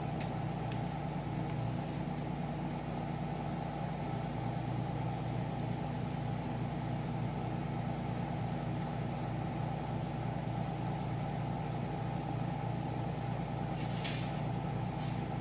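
Air conditioner running with a steady, loud hum, broken by a few light clicks.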